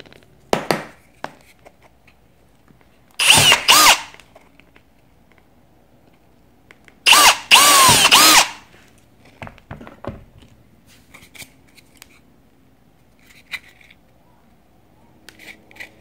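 Cordless drill boring holes through a red plastic battery housing: two short bursts of the motor whining, about three seconds in and again about seven seconds in, the second longer, its pitch rising and falling with the trigger. Light clicks and taps of the plastic being handled fall between them.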